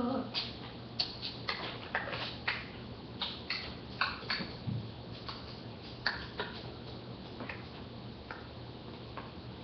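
Irregular light clicks and taps, about two a second for the first six seconds, then fewer, over a faint steady low hum.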